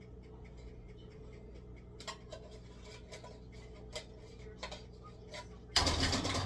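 Kitchen handling at the stove: scattered light clicks and taps, then about six seconds in a short, loud burst of noise lasting under a second.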